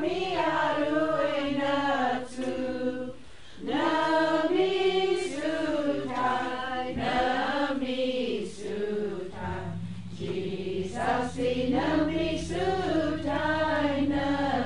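Several voices singing together, unaccompanied, in long, smoothly rising and falling lines. A steady low hum joins about two-thirds of the way in.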